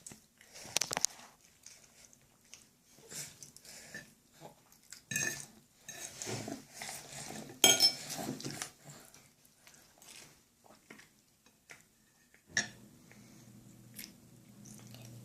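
Scattered clinks and taps of a fork and dishes at a child's meal, some sharp, with quiet gaps between.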